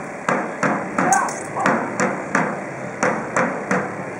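A side drum beaten in a steady beat, about three strokes a second.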